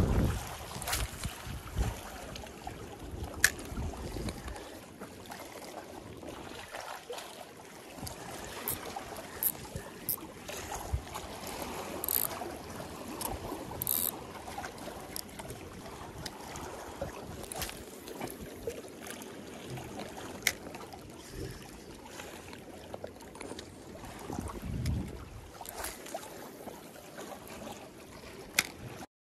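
Sea water lapping and sloshing against the breakwater blocks, with gusts of wind buffeting the microphone, strongest at the start and again near the end. A few sharp clicks stand out over it.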